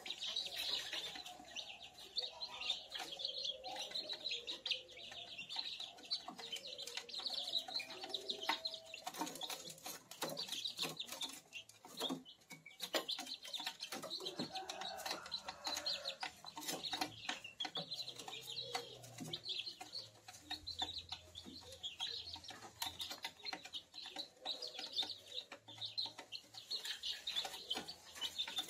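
A group of month-old kampung chicks chirping and peeping continuously, mixed with lower clucking calls and frequent short clicks as they move about the brooder floor.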